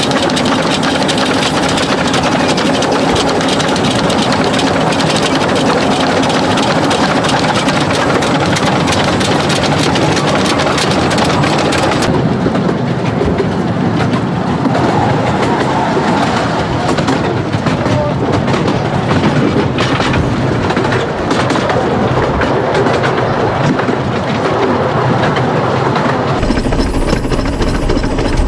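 15-inch gauge miniature steam train hauled by a model SR&RL 2-6-2 locomotive running along the track, with a steady rumble and the clickety-clack of wheels over the rails. The sound changes abruptly twice, about twelve seconds in and again near the end.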